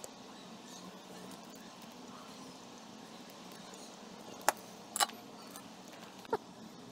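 Faint steady hiss and hum at a repair bench, broken by three sharp clicks: two close together about four and a half and five seconds in, and one more about a second later.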